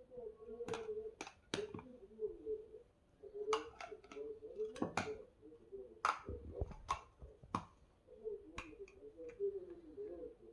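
Hard plastic LeapFrog LeapBuilders toy blocks being handled, clicking and knocking together, with about a dozen sharp clicks spread unevenly over a faint low murmur.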